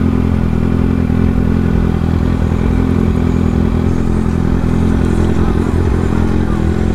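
Kawasaki sport bike's engine running steadily at low revs, its note holding an even pitch as the bike rolls slowly.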